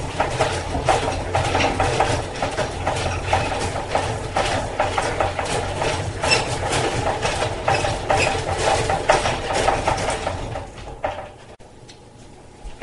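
Honey extractor spinning comb frames, running with a steady mechanical hum and a dense clattering rattle, then stopping about eleven seconds in.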